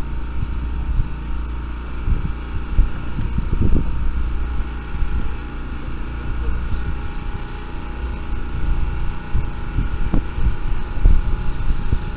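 Fishing boat's engine running with a steady low throb, and a few short knocks on the deck or hull, about four seconds in and near the end.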